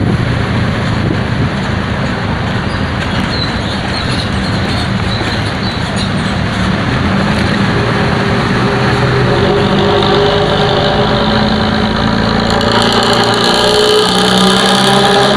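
Bus engine running loudly through a 'ngorok' exhaust, the rumbling snore-like note that old Indonesian buses are modified for. About halfway through, a clear engine note comes out of the noise and slowly rises in pitch as the bus picks up speed.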